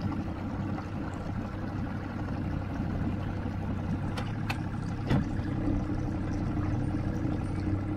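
Boat's outboard motor running steadily, a constant hum, with a few sharp knocks about halfway through.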